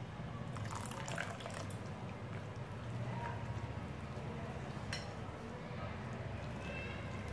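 Spoon stirring a thick, wet semolina-and-flour batter with chopped vegetables in a glass bowl: wet squelching with short scrapes and clicks of the spoon on the glass, one sharp click about five seconds in. A low steady hum lies underneath.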